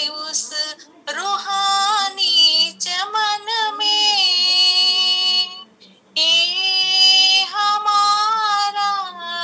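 A woman singing a Hindi devotional song solo, in long held, slightly wavering notes with short breaths between phrases.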